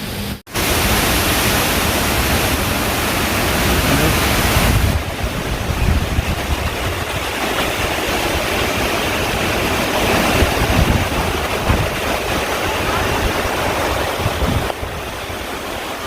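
Strong typhoon wind gusting and buffeting the microphone: a loud, steady rush of noise with a heavy low rumble. The sound drops out for an instant just after the start.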